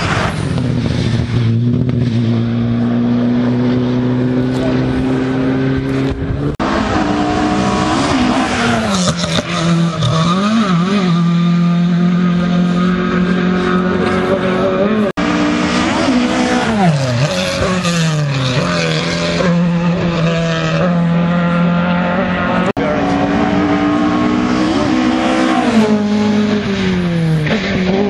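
Rally car engine at full throttle on the stage. Its pitch climbs through the gears and falls back at each shift, with quick dips and rises where the throttle is lifted and blipped. The sound breaks off suddenly three times.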